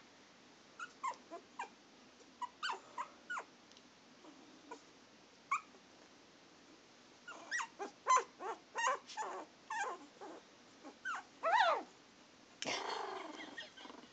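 Very young Miniature Schnauzer puppies making short, high-pitched squeaks and cries as they tussle. The calls are scattered at first and come thick and fast in the second half, with one longer wavering cry near the end, followed by about a second of noise.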